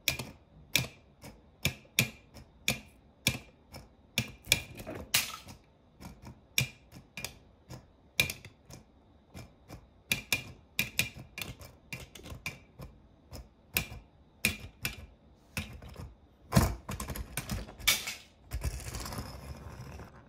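Small die-cast metal toy cars clicking and clacking against each other as a line of them is pushed along a hard floor, sharp knocks at irregular spacing, about two a second. Near the end, a louder knock is followed by a denser run of clatter.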